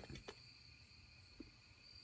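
Near silence: room tone, with a few faint clicks and a tick as the steel drill-press quill and spindle are handled.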